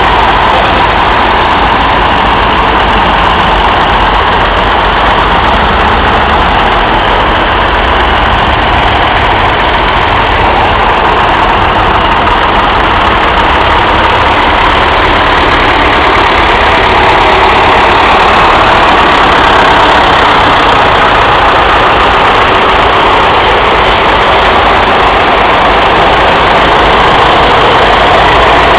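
Several vintage tractor engines, among them a Fordson and a Massey Ferguson 135, running at low revs as the tractors drive slowly past one after another. The sound is loud and steady, and rises slightly about two-thirds of the way through as the next tractor comes close.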